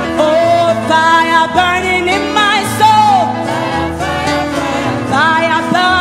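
Gospel praise music: singing voices over a band playing a steady, loud accompaniment.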